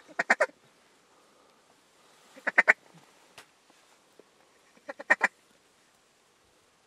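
Mallard-style quacking in three short runs of quick quacks, one at the start, one about two and a half seconds in and one about five seconds in.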